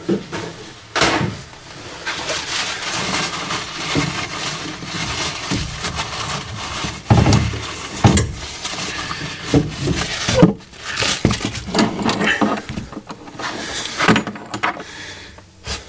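Kitchen paper towel rustling and rubbing as it wipes the cut ends of copper pipe clean and dry for soldering, with scattered knocks and bumps.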